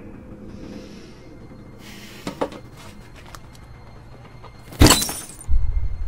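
A sharp, glassy crash about five seconds in, the loudest sound, followed half a second later by a deep low boom; softer knocks come a couple of seconds before it, over a dark film score.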